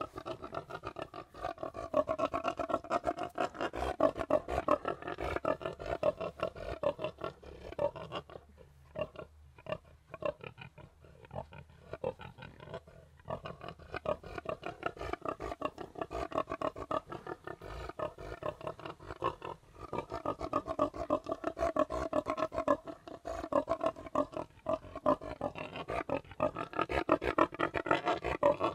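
Several pigs grunting together in a dense, rapid, continuous chorus. It drops to a quieter patch for several seconds about a third of the way in, then builds again.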